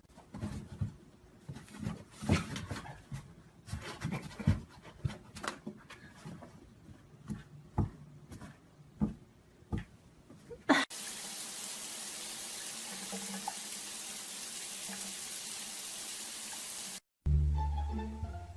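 Irregular knocks and taps of a cat's paws striking a cardboard box as it swats at something poking out of a hole in it. About eleven seconds in these give way to a steady hiss for some six seconds, and plucked-string music starts near the end.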